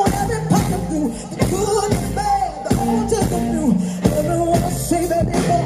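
A live band playing, with a singer's voice over a steady beat.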